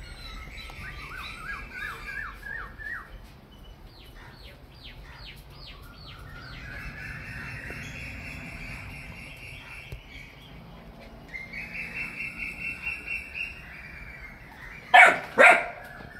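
Birds chirping in repeated short notes and trills, with two loud caws from a crow close together near the end.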